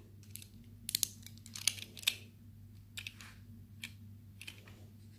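Lego pieces clicking and tapping as tile pieces are handled and pressed onto the build: a handful of scattered, short plastic clicks. A faint steady hum runs underneath.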